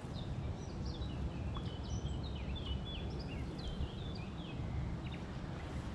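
Small songbirds calling and singing: many quick, high chirps and short whistled notes, several sliding downward, over a steady low rumble of wind noise on the microphone.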